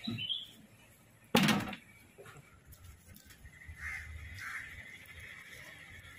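Raw chicken pieces being handled and scored with a knife, mostly faint, with one loud thump about a second and a half in.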